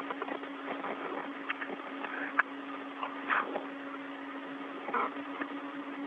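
Open space-to-ground radio channel with no one talking: static hiss over a steady low hum, broken by scattered clicks and short crackles.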